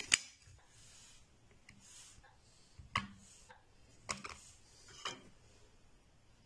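A few light clicks and taps of sesame laddus being set down and nudged on a ceramic plate. The sharpest click comes right at the start, and three more follow about a second apart near the middle.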